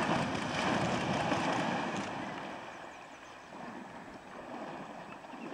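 Brown bear charging into a shallow creek, its body splashing heavily through the water; the splashing is loudest for about the first two seconds and dies away as it slows to a wade.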